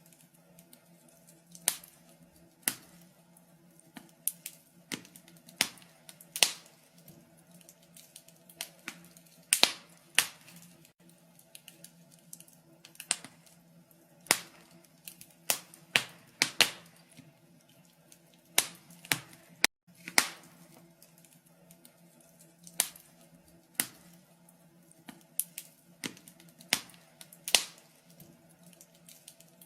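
Wood fire crackling in a fireplace: irregular sharp pops and snaps, a few a second, over a faint steady low hum, with a brief dropout about twenty seconds in.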